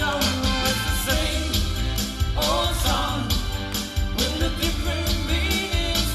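A Motown song performed loud: singing over backing music with a steady, regular beat.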